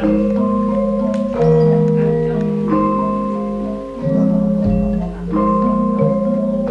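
Javanese gamelan music: tuned metal mallet instruments strike overlapping notes that ring on, with a deep low tone coming in about two-thirds of the way through and again at the end.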